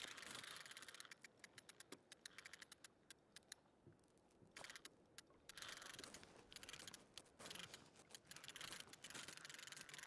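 Near silence with faint, irregular small clicks and a little hiss; the clicks are closest together in the first few seconds.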